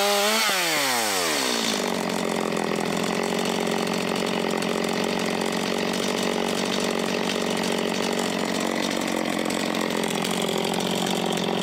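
Stihl MS250 two-stroke chainsaw with an over-tightened chain, running under load for about half a second. Its revs then fall away over about a second, and it settles into a steady idle.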